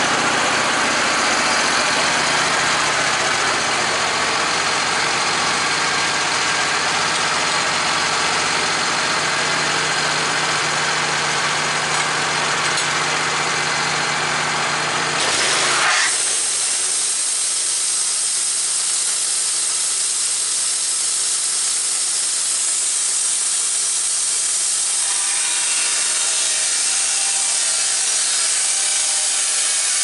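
Wood-Mizer LT15 band sawmill: its engine runs steadily with a pitched hum for about the first half. About halfway through the sound changes abruptly to a steady high hiss as the band blade cuts through the maple cant.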